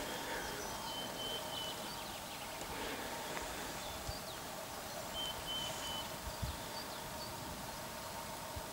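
Outdoor ambience: thin, high whistled bird calls, several held for about half a second to a second, over a steady background murmur, with a few soft low bumps.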